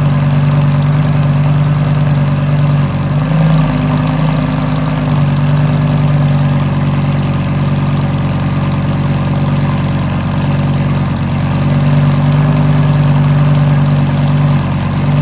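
2006 Lamborghini Gallardo Spyder's V10 idling steadily through its stock exhaust, the exhaust valves held open by a vacuum-line mod, shortly after a cold start.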